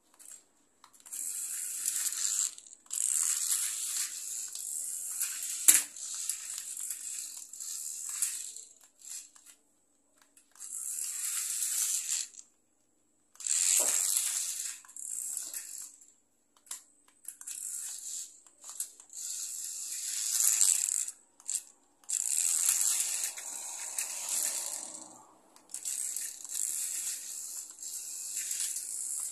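Homemade radio-controlled drift car's small motor whirring in repeated bursts of a second or two as the car drives and slides across a tiled floor, with one sharp knock about six seconds in.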